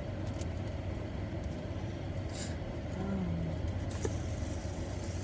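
Car engine idling, a steady low hum heard inside the cabin, with a few faint clicks and rustles of handling.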